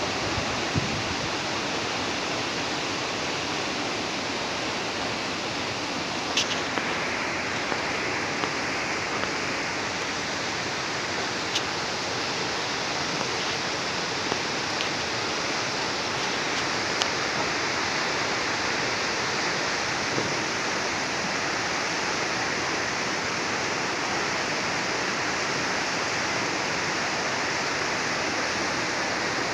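Steady rushing noise of a storm, with a few brief sharp ticks scattered through it.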